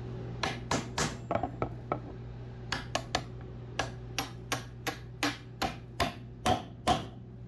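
Hammer knocking a carriage bolt down into a countersunk hole in a wooden block: about fifteen sharp strikes at an uneven pace, some in quick pairs, each with a short metallic ring.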